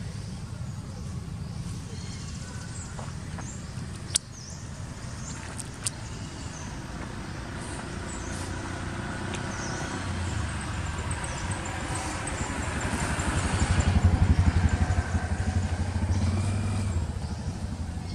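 A motor vehicle's engine running steadily, growing louder to a peak about fourteen seconds in and then fading as it passes by. Two short sharp clicks come near the start.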